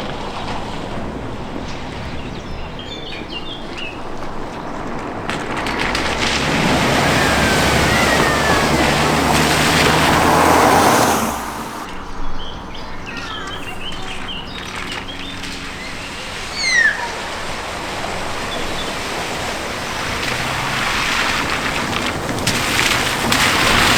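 A vehicle driving through a flooded ford: its engine running under the splashing of water, building up through the middle and cutting off suddenly. Birds chirp now and then, and another vehicle's splashing builds up near the end.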